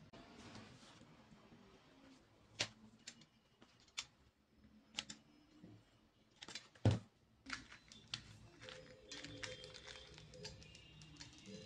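Scattered light taps and clicks of small objects being handled on a tabletop: cardboard matchboxes and an aluminium drink can being picked up, pressed together and set down. The loudest knock comes about seven seconds in.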